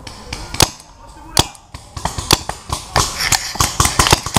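Paintball markers firing: two single sharp shots a little under a second apart, then a quicker run of shots from about two seconds in.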